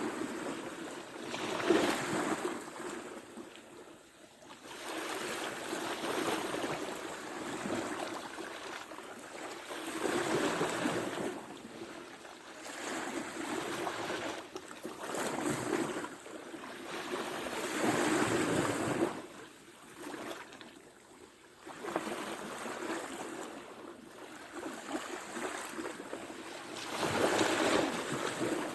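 Ocean surf: waves breaking and washing up the shore, the rush swelling and fading every few seconds.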